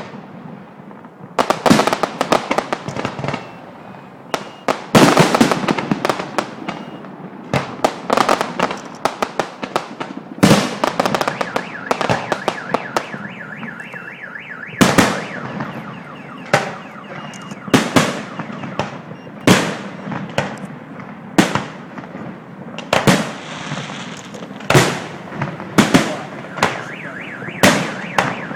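Fireworks display: shells bursting in sharp bangs with crackling between. A dense volley comes a few seconds in, then single booms every second or two. A car alarm set off by the blasts wails faintly underneath.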